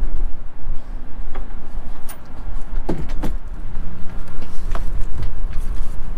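Wind buffeting the microphone in uneven gusts, a heavy low rumble, with a few faint knocks.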